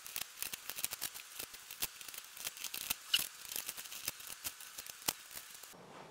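Scissors cutting through a sheet of layered masking tape: a quick run of small, sharp snips that stops near the end.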